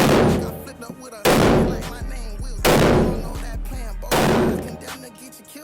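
Desert Eagle pistol fired four times, about a shot every second and a half, each shot a sharp crack with a long fading tail, over background music.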